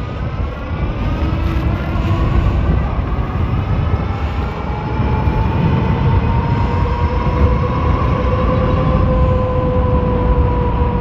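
Wind buffeting the microphone with a loud, steady low rumble as a Philodo Jumbo all-wheel-drive fat-tire e-bike is ridden. Over it, the e-bike's drive whine rises slowly in pitch over the first several seconds as it picks up speed, then holds steady.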